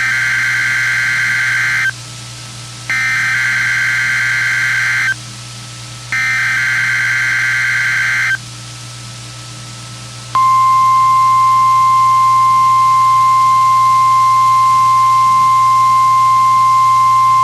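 NOAA Weather Radio emergency alert signal sent as a weekly test: three buzzy SAME digital header bursts of about two seconds each, a second apart, then from about ten seconds in the steady 1050 Hz weather radio warning alarm tone. A faint low hum from the broadcast runs underneath.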